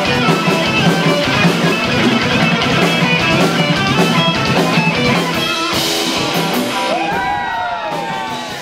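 A live hard rock band: distorted electric guitar playing fast lead runs over bass and drums, a cymbal crash about six seconds in, then long bent notes with vibrato as the music gradually gets quieter.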